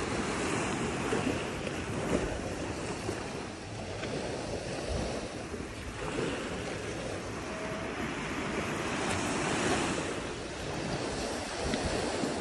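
Sea surf washing on the beach, mixed with wind buffeting the microphone: a steady rushing noise that swells a little near the end.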